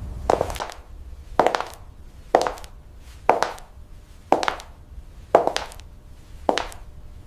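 Light taps, about one a second, each a quick double knock with a short ringing tail.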